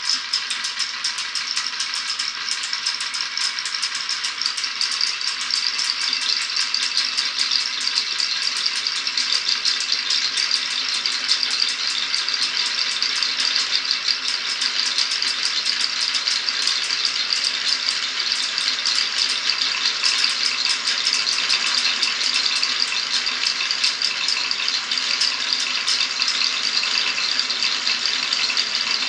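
Glass marbles clattering along a marble run in a dense, continuous rattle of quick clicks and light ringing knocks.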